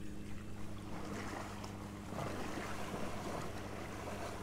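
Steady drone of a motorboat engine on the river, with a rush of wind and water noise that swells about a second in.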